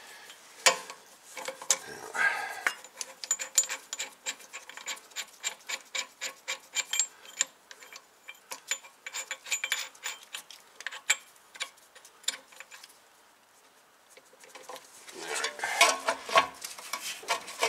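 Rapid, irregular metallic clicking and scraping as a screw-type brake caliper piston wind-back tool is turned to push a rear disc brake caliper piston back in. The clicking stops about thirteen seconds in, and louder metal clattering follows near the end.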